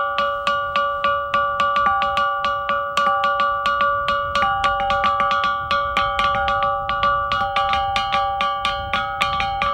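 Rock gong: a natural boulder struck repeatedly with a small hand-held stone, ringing like a bell at about three strikes a second. Each strike leaves several ringing tones that overlap the next, and the notes change as different spots on the rock are hit.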